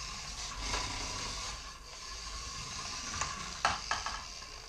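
Small toy RC race car's electric drive motor and plastic gears whirring as it runs across a hardwood floor, with a sharp knock about three and a half seconds in.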